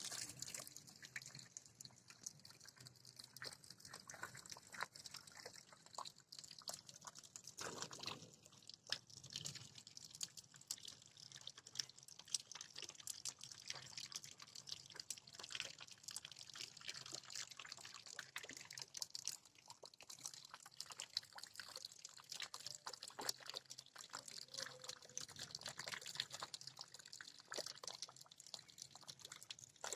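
Rain falling, heard as many irregular drops and drips over a faint hiss.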